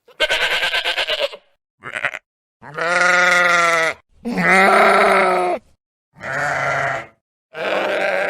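Sheep bleating: about six separate bleats with silence between them. The first quavers, one is short, and two in the middle are long and drawn out.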